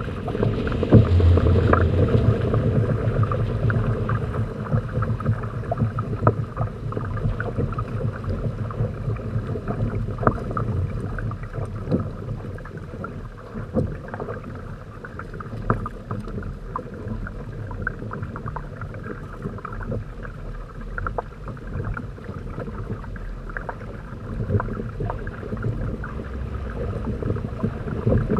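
Water splashing and rushing along the hulls of a Hobie Tandem Island trimaran under sail, with irregular small slaps throughout. A heavier low rumble comes in the first few seconds.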